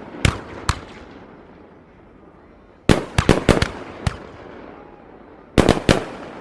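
Aerial fireworks bursting in sharp bangs, each trailing off in an echo. Two single bangs come early, a rapid run of about six about three seconds in, and a quick group of three near the end.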